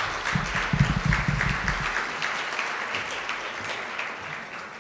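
Audience applauding, many hands clapping, with a few low thuds close by in the first two seconds; the clapping tapers off near the end.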